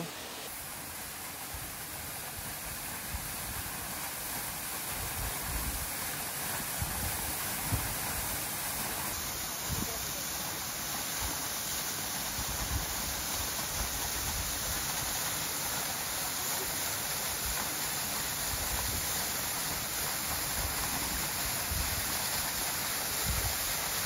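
Small waterfall pouring onto rocks: a steady rush of falling water.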